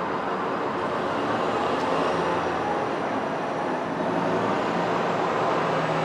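Steady background vehicle and traffic noise, an even rumble and hiss with no sudden events.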